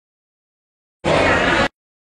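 Livestream audio dropping out: a second of dead silence, then a short burst of indoor public-space noise with voices that cuts in and out abruptly, a sign of a lagging connection.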